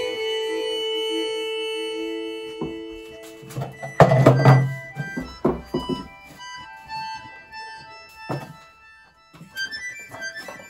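Instrumental music with held notes, broken by a heavy low thud about four seconds in and a second, shorter one near eight seconds.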